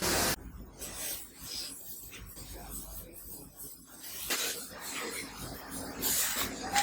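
Intermittent scraping and rubbing strokes of hand work in a knife workshop, with a short loud rush right at the start and louder strokes about four seconds in and near the end.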